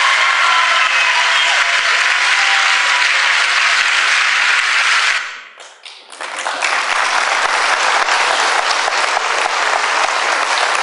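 A large audience applauding, with a few whoops at the start. Just past halfway the clapping drops away sharply, then comes back at full strength about a second later.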